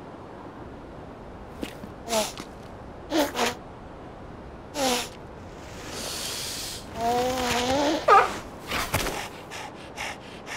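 Cartoon seal vocal effects: a few short squeaky calls that fall in pitch, then a long breathy intake followed by a wavering pitched hum. A quick rising call and several light taps come near the end.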